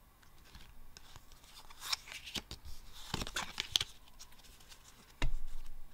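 Yu-Gi-Oh! trading cards being handled in the hands, rustling and scraping with small clicks as cards are slid through a stack, densest in the middle. A single sharp knock comes about five seconds in.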